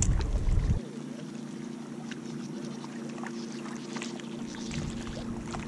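Wind buffeting a head-mounted GoPro's microphone, cutting off abruptly under a second in. After that, light wavelets lapping at the rocky shore come through as faint small splashes over a low steady hum.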